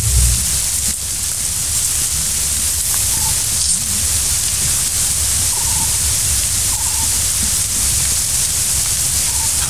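Steady high-pitched hiss of tropical forest ambience with a low rumble underneath, broken by a few faint short peeps.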